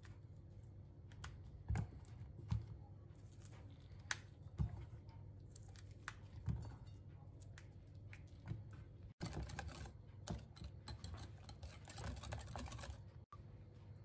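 Soft clicks and taps as strawberries are hulled by hand and dropped into a bowl, with a stretch of denser crackling and clicking in the last few seconds.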